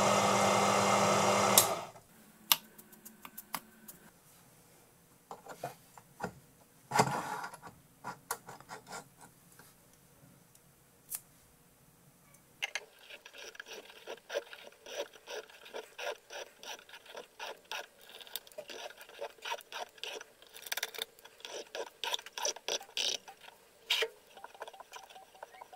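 Small Proxxon bench lathe running steadily for the first two seconds as it turns a brass bar. Then scattered light metallic clicks and one louder knock, and from about halfway a dense run of quick clicks as an M6 tap in a tap wrench is turned by hand into the brass, sped up four times.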